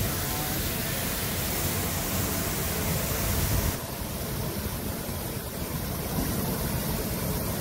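Automatic coach washing plant's high-pressure water jets spraying a passing train coach: a steady rushing hiss with a low rumble beneath. The hiss turns duller about four seconds in.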